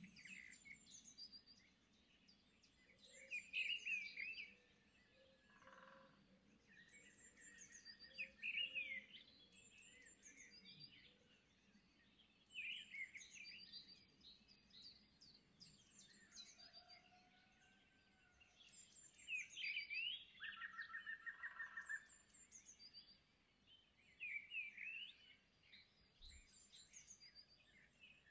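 Faint birds chirping: bursts of quick high chirps every few seconds, with a short rapid trill twice.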